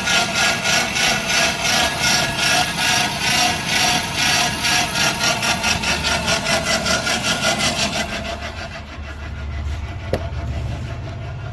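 Running engine with a failed alternator bearing making a loud rhythmic rasping, grinding noise, a few pulses a second. The noise dies away after about eight seconds, leaving a low engine hum. The noise stopped when the serpentine belt was taken off, and the bearing is judged gone.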